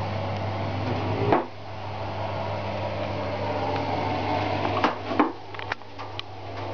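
A steady electrical hum with a low droning tone, with a knock about a second and a half in, after which the hum is quieter, and a few more knocks and clicks near the end.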